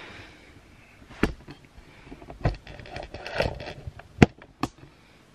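Handling noise: scattered sharp clicks and knocks with light crackling of a plastic blister pack being handled. The loudest knock comes about four seconds in.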